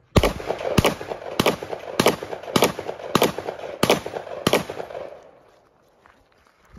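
Custom Beretta 1301 semi-automatic shotgun fired eight times in quick succession, about 0.6 s apart, as the stage starts. The shots echo briefly and fade out a little after the last one.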